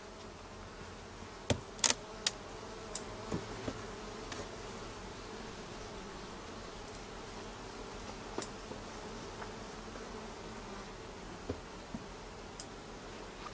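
Honeybees buzzing steadily in an open hive during an inspection, with a few sharp clicks in the first few seconds and a couple more later on.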